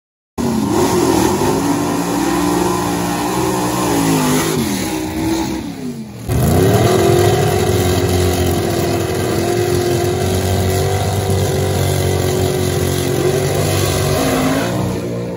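Chevrolet 409 V8 in a 1933 Willys gasser drag car, loud and revving up and down, then after a brief drop about six seconds in the revs climb and are held high and steady at the starting line.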